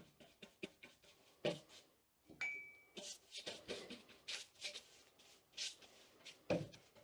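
Brush strokes applying wood hardener to an old wooden sash window: a run of short scratchy swishes with a few knocks, coming about two or three a second in the second half, and a brief high tone about two and a half seconds in.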